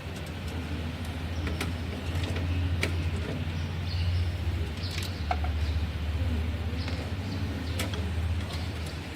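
Light clicks and taps from handling the parts of an opened desktop computer cabinet, over a steady low hum.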